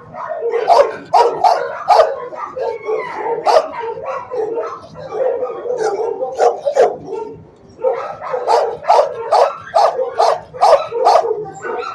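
Shelter dogs barking in the kennels: quick runs of sharp barks about a second in and again from about eight seconds in, with a quieter stretch between.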